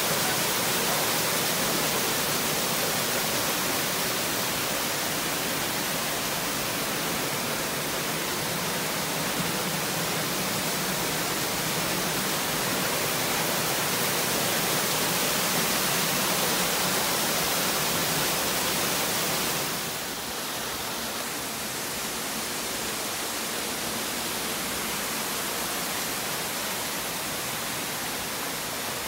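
Steady rushing of a mountain stream tumbling over small waterfalls, an even hiss with no breaks. About two-thirds of the way through it becomes a little quieter and thinner.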